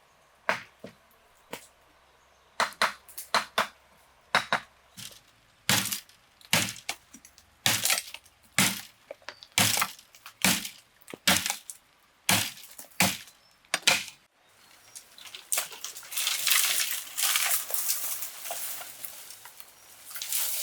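Sharp, irregular strikes on wood or bamboo, about one or two a second, for some fourteen seconds; then a denser stretch of crackling and rustling.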